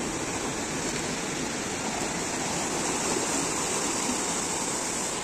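Sea waves breaking on the beach, heard as a steady rush of surf.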